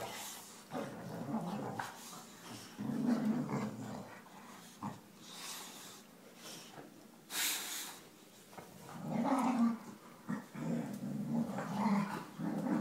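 Two boxer dogs growling in bouts as they play tug-of-war with a plush toy, the growls heaviest about three seconds in and again over the last few seconds, with a brief rustle midway.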